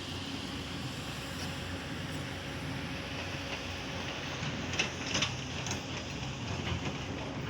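Heavy-equipment diesel engine running steadily, with a few short knocks about five seconds in.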